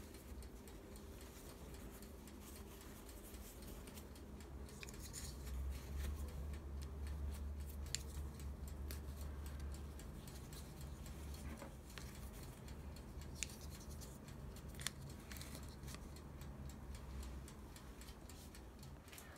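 Faint rustling of a cotton cloth being handled and tucked around a tray, with a few light clicks from plastic clips snapping onto the cloth.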